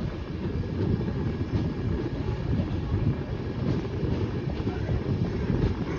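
Passenger train coaches rolling on the rails as the train pulls out of a station, heard from an open doorway: a steady low rumble with a few faint wheel clicks.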